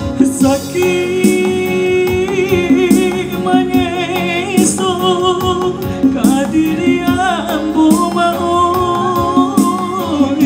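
A man singing into a handheld microphone over a backing track, holding notes with a wavering vibrato.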